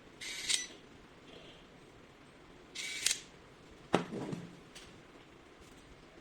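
Smart electronic cabinet lock being unlocked from a phone app: two short, high-pitched buzzing bursts, then a single sharp click with a brief ring about four seconds in as the latch releases.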